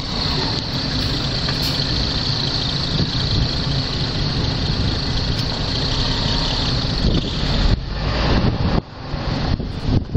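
Busy street traffic noise: a steady rumble of vehicles, broken by gusts of wind on the microphone in the last few seconds.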